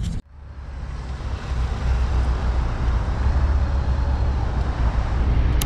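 Motorcycle engines idling and road traffic passing, a steady low rumble that builds up over about two seconds after a sudden drop near the start. A click comes near the end.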